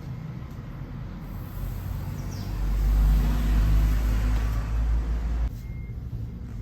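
A road vehicle's low rumble that swells and then cuts off suddenly about five and a half seconds in.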